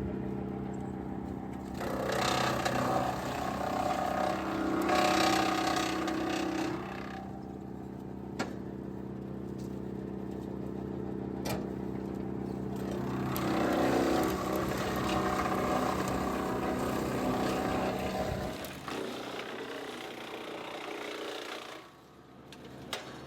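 Wood chipper running steadily, with two louder rough stretches as limbs are fed in and chipped. The sound eases off near the end.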